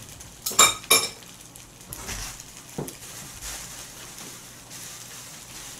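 Metal spoons clink sharply against a wok twice, about half a second apart, each strike ringing briefly, with a lighter click a couple of seconds later. Fried rice sizzles faintly in the wok on the gas burner throughout.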